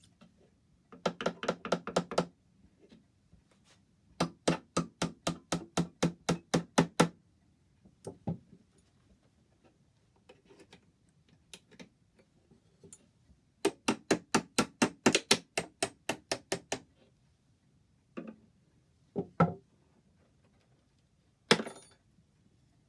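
Light hammer taps on wood in quick runs of about five strikes a second: one short run near the start and two longer runs of a dozen or more strikes. Between the runs and near the end come a few single knocks.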